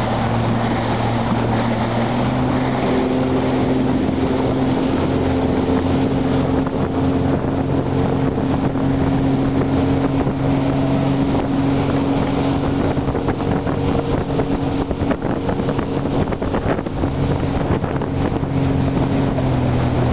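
Motorboat engine running at a steady speed, its pitch rising slightly about two seconds in, with wind and water noise over the microphone.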